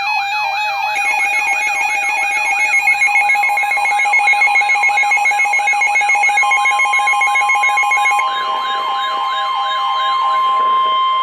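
Electronic yelp siren sweeping up and down about two to three times a second, layered with steady alarm tones. About six seconds in, a steady single alert tone joins; the siren stops near the end.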